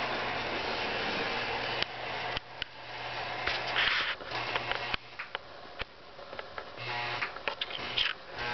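Three-rail toy electric train running with a steady whir and hum, which cuts off about two seconds in. Scattered clicks and knocks follow, with short bursts of the same hum.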